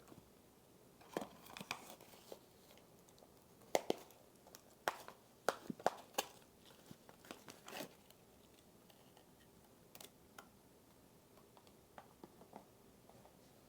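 Cereal slime being pulled and worked by hand, giving soft crackles and clicks from the crunchy bits: bunches of them about a second in and again through the middle, then a few scattered clicks near the end.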